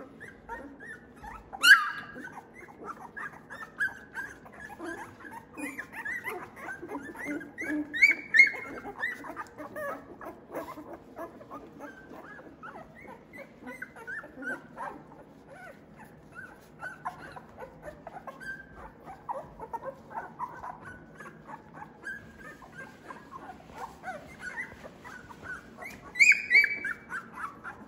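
Two-week-old Australian Labradoodle puppies whimpering and squeaking in a constant stream of short, high cries. Louder yelps stand out about two seconds in, around eight seconds, and near the end.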